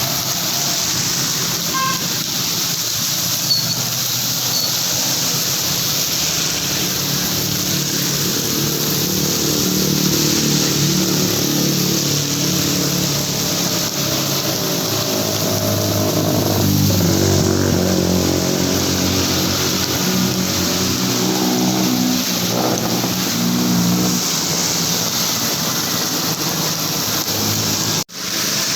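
Heavy rain falling steadily, with a motor vehicle's engine running under it, loudest through the middle. The sound cuts out for an instant near the end.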